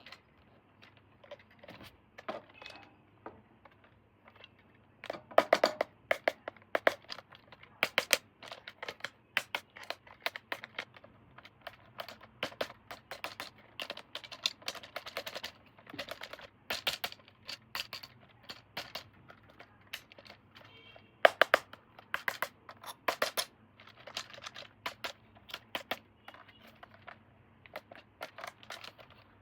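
Toy packaging being handled and opened: irregular clicks, taps, plastic crinkling and scratching, in dense clusters with short pauses between.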